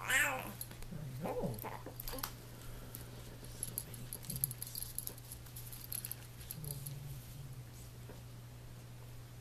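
Young baby cooing and squealing, a short high call at the start and gliding vocal sounds a second later, while the hanging toys of a baby play gym clink and jingle lightly. A low steady hum runs underneath.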